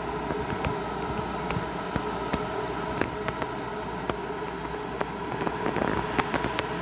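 EU160 electric locomotive standing at the platform, its electrical equipment and blowers humming steadily with a few held tones. Scattered sharp clicks and crackles are heard throughout and grow more frequent about five to six seconds in.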